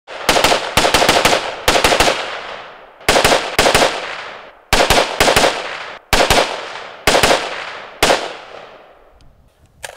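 AR-15 rifle with a 5.45×39 mm upper firing quick strings of semi-automatic shots, two to four shots at a time, each string trailing off in a long fading echo, with one last shot near the end.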